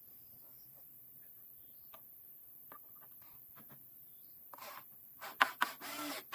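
Faint scattered clicks and light rubbing of wood and tools being handled, followed near the end by a louder cluster of sharp knocks and scraping.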